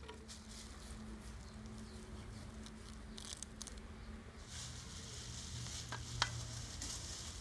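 Thin plastic bag crinkling and rustling as raw chicken pieces are tipped out of it onto a steel plate, with a sharp click just after six seconds in.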